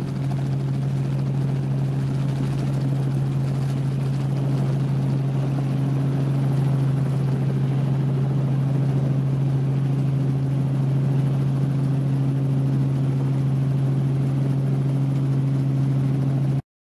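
Robinson R44 helicopter's rotors and piston engine running with a steady low hum and rushing noise, heard from inside the cabin as it comes in low to land. The sound cuts off suddenly near the end.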